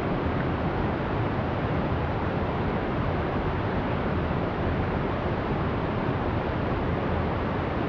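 Small mountain stream rushing and splashing over rocks in a steady, unbroken flow.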